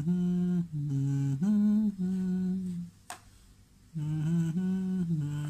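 A person humming a tune in short held notes that step up and down, in two phrases about a second apart. A single sharp click falls in the pause between them.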